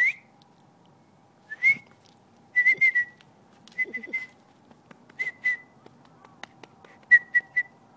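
A person whistling short, high notes, alone or in quick groups of two to four, to call an Italian greyhound.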